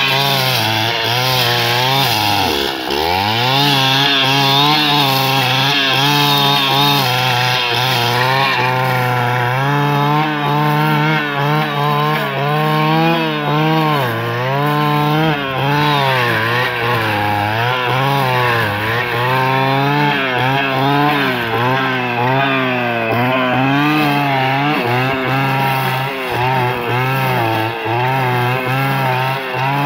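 Stihl FS 220 brushcutter's two-stroke engine running at high revs while its blade cuts dense dry grass; the engine note repeatedly sags under load and picks back up, with one deep dip about three seconds in. The owner says the engine is a little out of tune.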